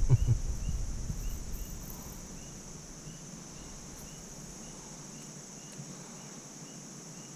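Insects chirping steadily outdoors: a continuous high-pitched drone with a short chirp repeating about twice a second. A low rumble of handling noise fades out in the first couple of seconds.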